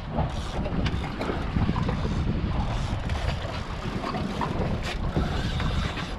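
Wind buffeting the microphone on an open boat at sea, a steady low rumble with the wash of the sea beneath it.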